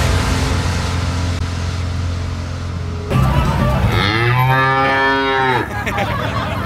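A cow's moo: one long call about four seconds in, lasting about a second and a half, its pitch rising and then falling. Before it, electronic music with steady bass stops about three seconds in.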